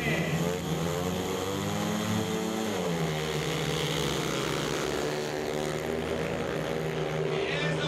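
Four speedway motorcycles, 500 cc single-cylinder methanol engines, revving at the start and racing off together into the first bend, their pitch rising and falling as the riders work the throttles.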